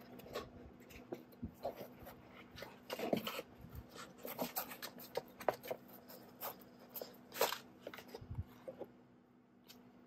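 Unboxing handling noises: the grinder's electric motor unit is lifted out of its foam packaging, with irregular rubbing, scrapes and small clicks against the foam and cardboard box. There are louder scrapes about three and seven seconds in and a dull thump just after eight seconds, over a faint steady hum.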